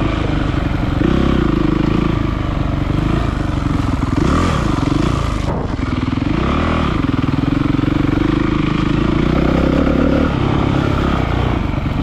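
Honda CRF250 dirt bike's single-cylinder four-stroke engine running under throttle, its revs dipping and climbing back twice around the middle as the rider eases off and gets back on the gas.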